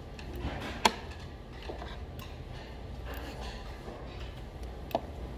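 Eating utensils clinking against dishes at a meal: a few scattered clicks, the sharpest about a second in and another near the end, over a steady low hum.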